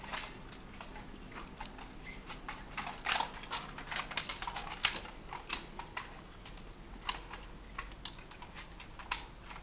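Scattered light clicks and rattles from a rifle and gear being handled between strings of fire, some coming several a second and others with pauses between them. No gunshots.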